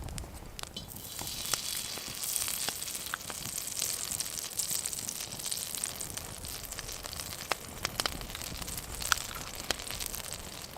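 Butter sizzling in a hot hanging pan over a campfire, a steady hiss starting about a second in, with scattered sharp pops.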